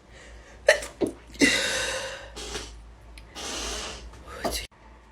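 A person sneezing several times in quick succession, with sharp catches of breath between the sneezes: a sneezing fit set off by a nasal swab test.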